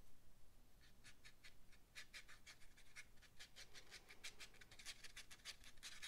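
Faint scratching of a nearly dry paintbrush scrubbed in quick short strokes over textured Arches watercolor paper, about five strokes a second, starting about a second in and getting busier toward the end.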